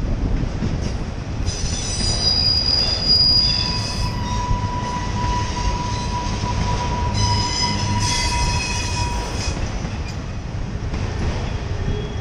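Empty autorack freight cars rolling slowly by, with a low rumble of steel wheels on rail. The wheels squeal in high tones twice, about a second and a half in and again about seven seconds in, each for a couple of seconds, with a steadier lower whine between the two spells.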